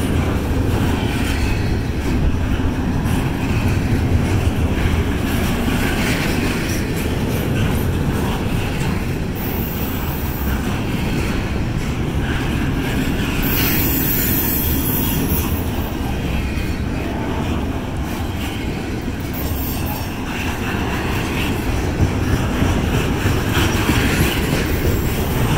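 Double-stack container well cars of a long freight train rolling past: a steady rumble and clatter of steel wheels on the rails, with brief high-pitched wheel squeals about ten and fourteen seconds in.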